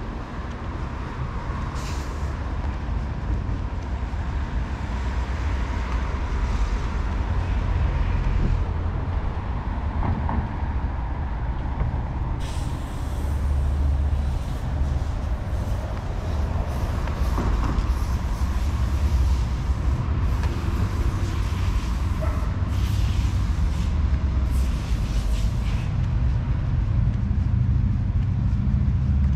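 Wind rumbling on the microphone over outdoor waterfront ambience, with a faint steady hum and several bursts of hiss in the second half.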